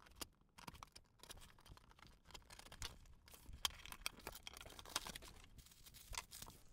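Faint scattered taps and rustles of hands handling and opening a cardboard shipping box, with tissue paper being pulled open near the end.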